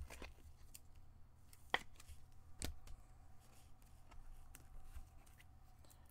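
Quiet handling of hockey trading cards and pack wrappers, with a few light clicks and snaps over a faint steady hum.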